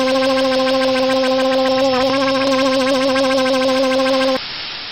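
Cartoon sound effect of a paint-spraying machine: a steady buzzing machine hum with a rapid flutter over a spray hiss. The hum cuts off abruptly about four and a half seconds in, leaving the hiss.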